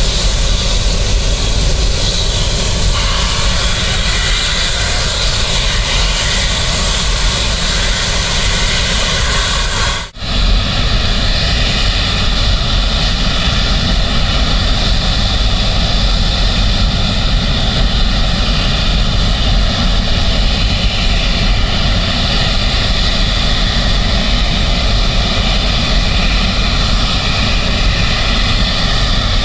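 Antonov An-124-100's four Lotarev D-18T turbofan engines running steadily with a whine of several tones as the aircraft taxis onto the runway. About ten seconds in, the sound cuts out for a moment, then resumes.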